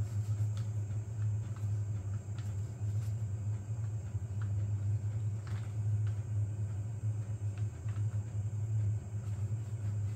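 A steady low hum runs throughout, with a few faint clicks and rustles from paper being slid under a 3D printer's nozzle while the bed is levelled by hand.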